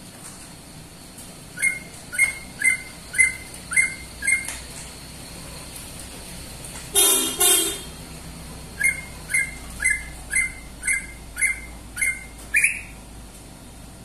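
Greater green leafbird (cucak ijo) calling: a run of six short, clipped notes at about two a second, then two loud harsh notes about halfway through, then another run of eight short notes at the same pace.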